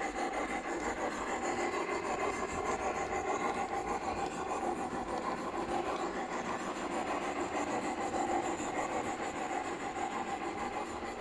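LGB garden-scale model steam locomotive running along the track with its coaches: a steady rasping running noise.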